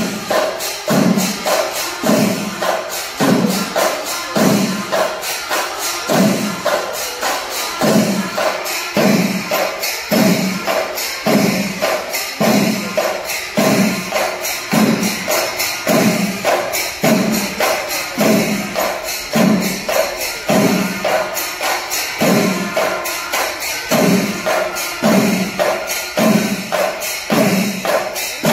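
Kerala temple percussion ensemble (melam) of many chenda drums and elathalam cymbals playing together: a steady low drum beat about every two-thirds of a second under a continuous rapid clash of cymbals and drum strokes.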